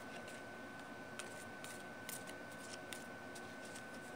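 Round cardstock tarot cards being shuffled by hand, a soft, irregular run of small clicks and slides as the cards slip over one another. A faint steady high-pitched whine sits underneath.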